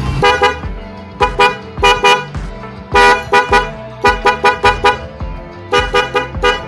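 Aftermarket 'anti-tinny' horn on a Honda PCX scooter sounded in a series of short honks, some in quick runs of four or five, giving a fuller 'tot tot' tone rather than a shrill one.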